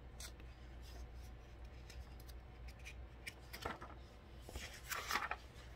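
Faint handling of a large paper picture book: soft rubs and small clicks, with a louder rustle about five seconds in as the page is turned.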